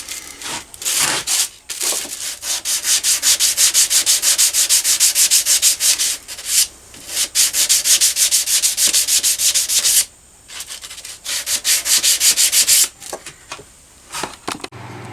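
Hand wet sanding of a rusty steel compass with 500-grit wet/dry paper lubricated with WD-40. It goes in quick back-and-forth strokes, about five a second, in three runs with brief pauses between them, and stops shortly before the end.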